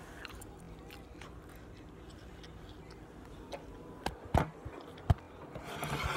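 Slime being worked by hand: a few sharp clicks and pops about four seconds in and again about a second later, over low room noise.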